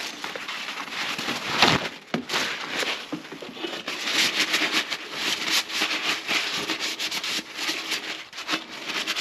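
Paper towel rubbing and wiping out a surface with an irregular scratchy scrubbing, with a single knock a little under two seconds in.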